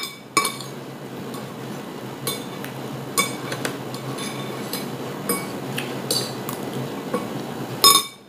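Metal spoon and fork clinking against a ceramic plate while scooping rice: about a dozen sharp, ringing clinks at irregular intervals, the loudest near the end.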